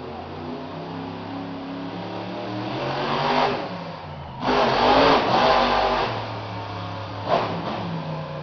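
Monster truck engine revving hard, its pitch climbing over the first three seconds, then a louder full-throttle burst about four and a half seconds in as the truck is up on its rear wheels, with a short sharp rev near the end.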